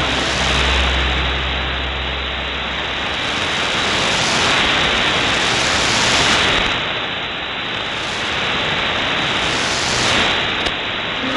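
Shortwave AM receiver hiss and static, the 6185 kHz broadcast faded down into the noise. The hiss swells and sinks over a few seconds, with a low hum for about the first three seconds.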